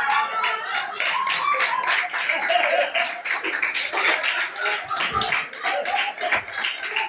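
Audience clapping in a dense, irregular patter, with voices heard through it.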